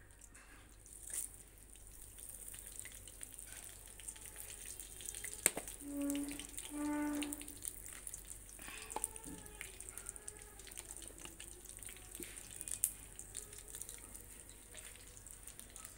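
Hot fish-frying oil with spices sizzling faintly in a karahi over a fire, a steady hiss with scattered small crackles. A short pitched sound comes twice in the background about six to seven seconds in.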